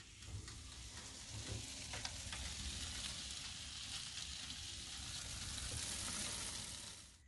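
Buttered puff-pastry parcels of grouper sizzling in a metal muffin tin as they bake in a toaster oven: a faint steady hiss with a few scattered crackles.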